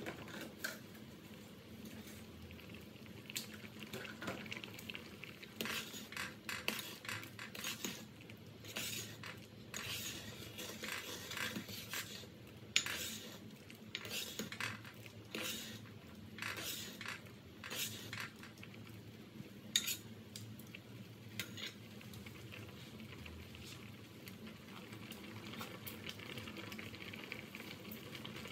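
Stainless-steel ladle stirring a simmering pot of sweet potato dessert, with irregular clinks and scrapes of metal against the pot. Near the end the clinking stops and a steady simmering hiss is left.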